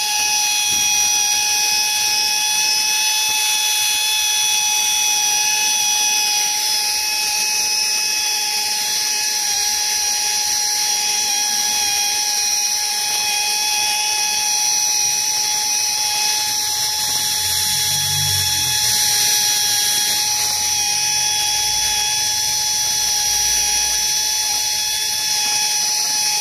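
Air tool spinning a wire cup brush, scrubbing thick oily sludge off an engine valve cover: a steady high-pitched whine that holds one pitch throughout.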